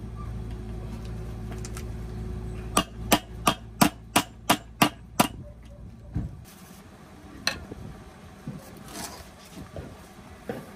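Eight sharp hammer blows, about three a second, over a steady low hum that cuts off about six seconds in, followed by a few scattered knocks.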